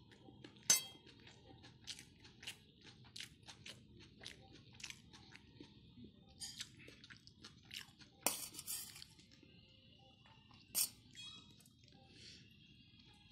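Steel spoon scraping and clinking against a steel plate while scooping rice: a run of small irregular clicks with three sharper clinks, one just after the start, one past the middle and one about three-quarters through.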